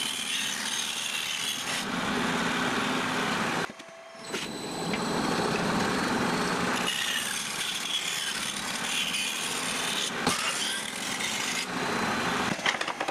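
A part being trimmed with a cutting tool: a steady cutting noise that stops briefly about four seconds in, then carries on.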